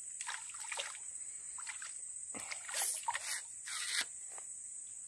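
Water splashing and sloshing in a series of short bursts, the loudest a little before three seconds in, as a hooked climbing perch (pepuyu) thrashes at the surface of the swamp water.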